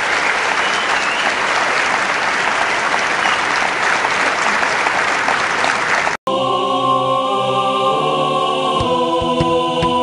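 Background music track: a dense, noisy wash for about six seconds, then a brief dropout and sustained choir-like chords that change twice, with light struck notes near the end.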